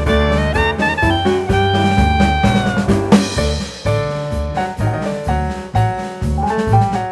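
Background music: an upbeat jazzy instrumental with drum kit, bass and melodic lines on a steady beat.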